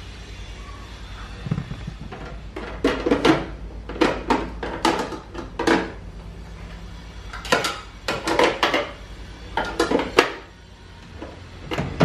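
Clatter and knocks of refrigerator shelves and bins being set back into the fridge, in several bursts.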